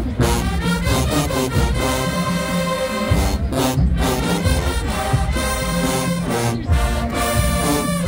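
HBCU marching band playing: a full brass section with sousaphones holding loud, sustained chords over drums.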